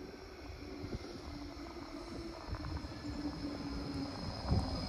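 Low-floor Basel tram approaching a stop. Its electric drive gives a steady high whine that grows louder as it nears, with a lower tone that slowly falls as it slows. A low thump comes about four and a half seconds in.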